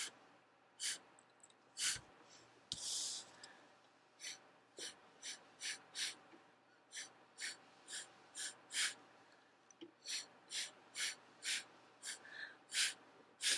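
Short, sharp puffs of breath blown through a drinking straw cut in half, about two a second in runs, with one longer blow about three seconds in. The puffs drive a bead of black watercolor across wet paper, the straw-blowing technique that draws out a thin branch.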